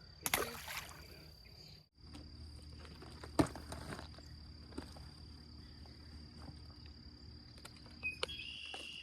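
Steady high-pitched insect drone over a low background hum, with a brief noisy rush just after the start and a single sharp knock about three and a half seconds in.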